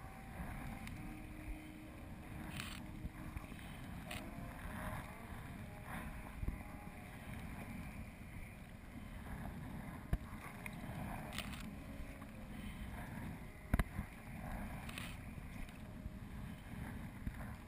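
Sea kayak paddle strokes: the blades dipping and splashing into choppy water every couple of seconds, over a steady low rush of wind and water. There is one sharper knock about three-quarters of the way through.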